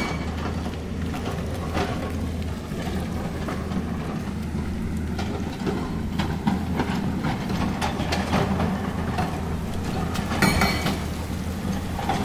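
Hydraulic excavator diesel engines running steadily at a low drone, with irregular clanks and knocks of rock being worked.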